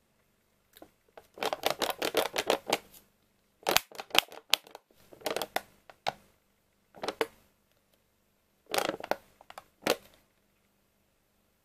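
Plastic dessert cup with a foil lid crackling and clicking as it is turned in the hands, in five or so short bursts of rapid clicks with pauses between them.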